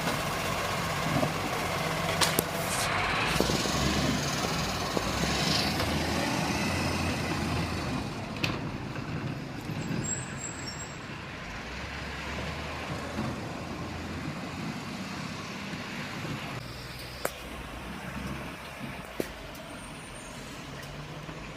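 Garbage truck's diesel engine running as the truck drives along, with road noise. It grows steadily quieter through the second half as the truck pulls away.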